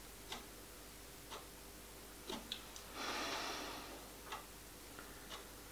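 Faint ticking, evenly about once a second like a workshop clock, with a short breathy hiss about three seconds in.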